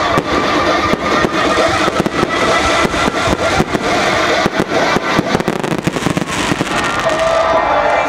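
Fireworks display: aerial shells bursting one after another in a dense string of bangs and crackles.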